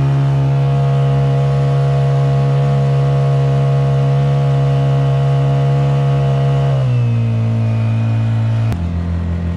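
Honda GX50 single-cylinder four-stroke air-cooled outboard running steadily under way. Near the end it is throttled back in two steps, and its pitch drops each time, the second time to a low, slow putter.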